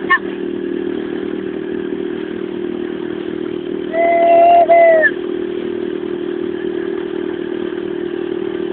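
A small inflatable boat's outboard motor running steadily while under way. About four seconds in, a louder high held tone sounds for a little over a second.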